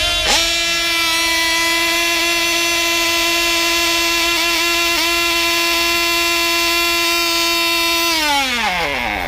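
F2C team-race model aircraft's 2.5 cc diesel two-stroke engine running flat out at a high, steady pitch, with a brief dip about a third of a second in and a few small wavers midway. Just after eight seconds it is shut off: the pitch slides down and the engine winds down to a stop near the end.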